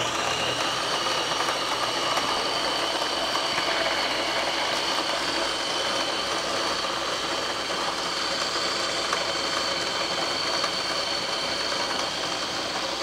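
Electric food processor running steadily, its motor whirring with a steady high whine as it blends a thick banana dessert mixture.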